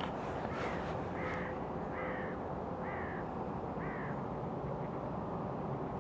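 A bird calling repeatedly: five short falling calls about a second apart, stopping about four seconds in, over a steady background hiss.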